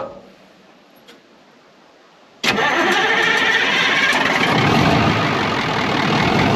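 Cummins diesel engine of an antique Brockway truck comes in suddenly about two and a half seconds in and then runs loud and steady.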